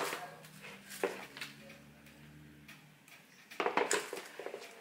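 Plastic lid of a food storage container being pressed down and its locking tabs snapped shut: a few light clicks, then a quick run of sharp clicks and knocks near the end.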